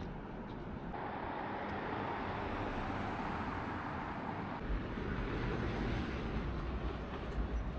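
Steady outdoor background noise, a low rumble with a hiss, that changes abruptly about a second in and again about four and a half seconds in.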